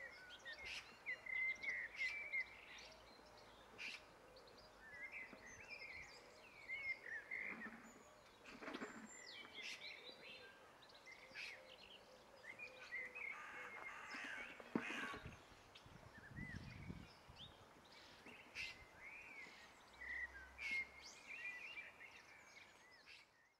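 Small birds chirping and singing steadily in the background, many short calls one after another. A few faint knocks and a brief low thump about two thirds of the way through come from handling the book.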